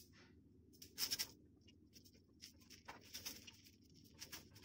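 A steel spoon spreading thick chutney over a dosa on a hot tawa: faint, irregular scraping and dabbing strokes.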